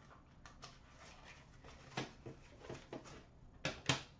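A cardboard trading-card box and its cards being handled on a glass counter: faint scattered clicks and light taps, with a knock about two seconds in and two sharper knocks close together near the end.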